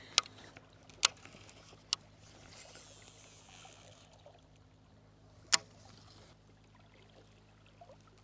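Four sharp clicks or knocks, the loudest about five and a half seconds in, with a short hiss between the second and third seconds, over a faint steady hum: gear being handled on a small fishing boat.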